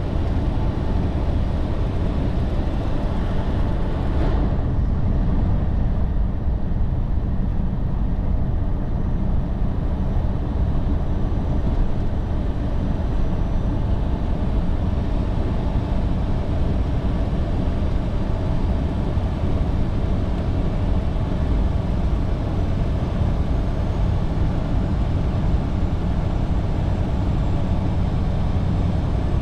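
Semi-truck cab interior while driving: steady, deep engine and road rumble, with a faint click about four seconds in.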